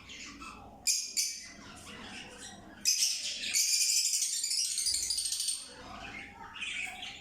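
Aviary of pet parrots (lovebirds, cockatiels and ringnecks) chirping and squawking, with two sharp calls about a second in and a loud burst of massed high-pitched screeching from about three seconds in that lasts a couple of seconds.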